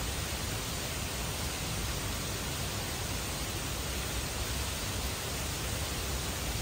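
Steady rain falling outside, an even hiss with no separate drops or other events.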